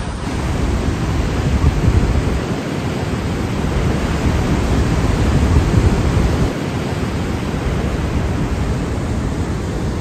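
Loud, steady rush of a large waterfall: falling water and spray making an even, unbroken roar with a heavy low end.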